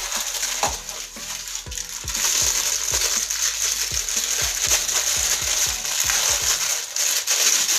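Plastic packaging crinkling and rustling as microphone accessories are handled and unwrapped, getting louder and denser about two seconds in.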